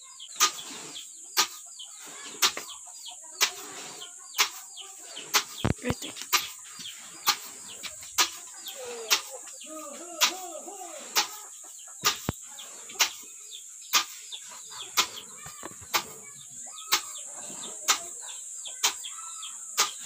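Long wooden pestle pounding roasted coffee beans in a mortar, a dull thud about once a second. Chickens cluck in the background.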